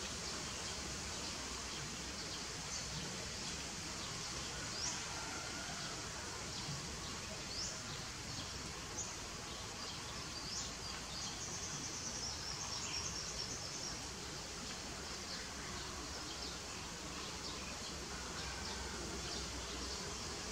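Steady outdoor background noise with scattered short, high bird chirps and a brief high trill around the middle.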